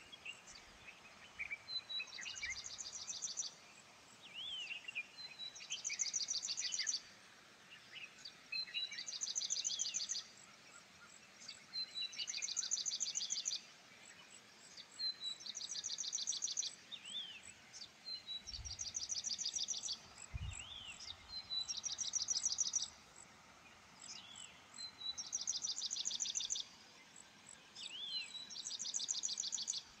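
Birdsong: a bird repeats a fast, high trill about a second long roughly every three seconds, with other short chirps in between. Two soft low thumps occur about two-thirds of the way through.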